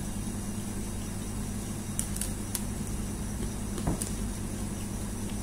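Steady low hum of room background noise, with a few faint, sharp clicks around two seconds in and again about four seconds in.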